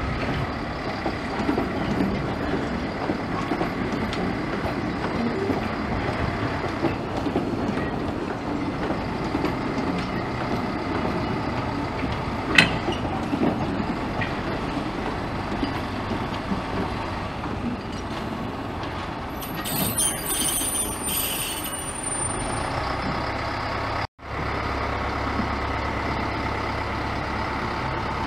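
Narrow-gauge diesel locomotive No. 10 running as it slowly hauls coaches, its engine a steady hum throughout. A single sharp clank comes about halfway through, and a brief high squeal with some rattling a few seconds later; the sound drops out for an instant near the end, then the engine carries on steadily.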